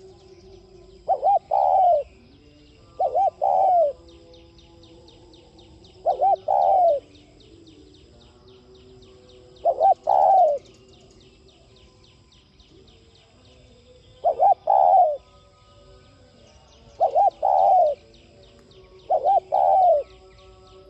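Spotted dove cooing: seven repeated phrases, each a couple of quick notes running into a longer one, spaced a few seconds apart.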